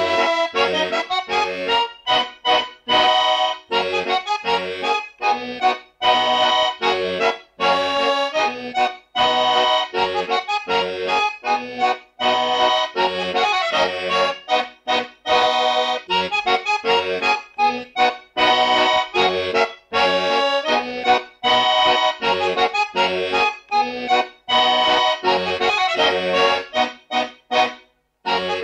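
Instrumental background music with a quick, steady rhythm.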